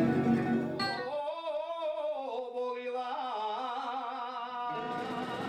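Music: plucked tambura for about the first second, then a sudden change to a solo sung melody, a single line of held, wavering notes with no bass beneath, which gives way near the end to a fuller texture.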